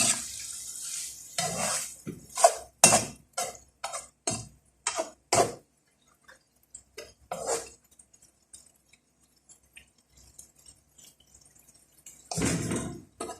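Spoon knocking against a cooking pot: a run of about a dozen sharp clinks in the first half, then a few faint ticks, and a short scraping rush about a second before the end.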